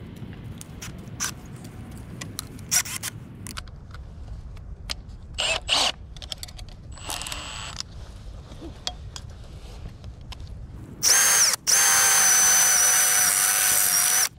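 Power drill with a step bit (unibit) drilling out a hole in a metal fence-door hinge. There are a few handling clicks and knocks first; about eleven seconds in the drill runs at speed with a steady high whine, stops for a moment, then runs on.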